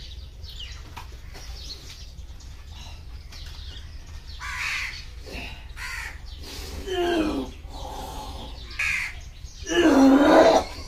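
Crows cawing: several harsh caws about a second long, the loudest near the end.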